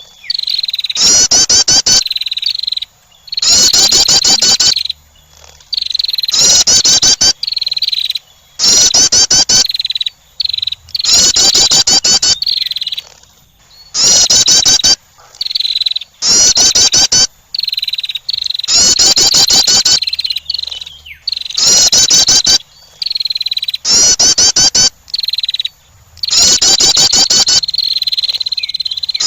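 A small songbird, given as a female wren, singing loud, fast trilled phrases about once every one to two seconds in a repeated lure-call pattern. A thin steady high tone runs between the phrases.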